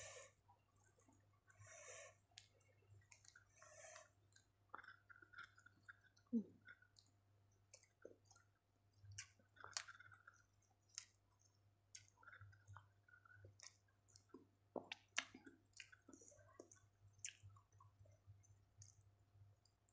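Faint eating sounds picked up by a clip-on microphone: a person chewing rice and salted fish eaten by hand, with scattered small mouth clicks and wet smacks.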